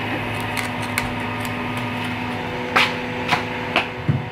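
Steady hum of a running water pump with water spraying, and a handful of sharp knocks, the loudest about three seconds in.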